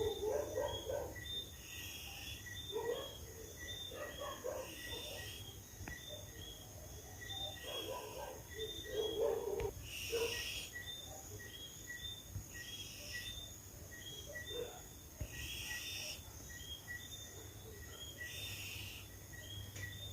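A sleeping cat snoring: a raspy breath sound recurs about every two and a half to three seconds.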